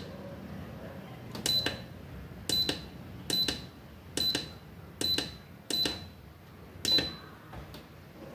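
Seven short high-pitched electronic beeps, each with a click, at uneven intervals of roughly a second, over a faint hum: the Electrolux LPR17 washer's controls being stepped through its self-test.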